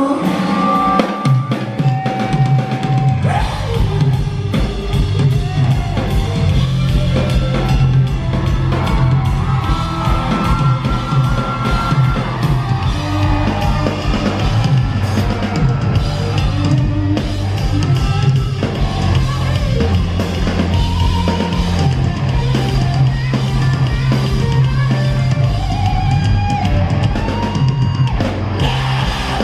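Live rock band playing loud through a venue sound system: electric guitars, bass guitar and a full drum kit. After a sparse first second the bass comes in, and the drums join at about three seconds, the full band then playing on.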